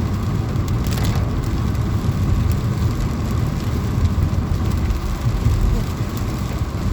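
Steady low rumble of a car being driven, heard from inside the cabin, with a hiss of heavy rain on the car.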